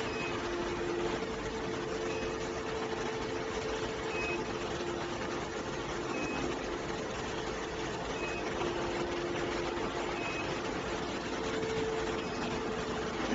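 Steady machinery noise with a low hum, and a short high beep repeating about every two seconds.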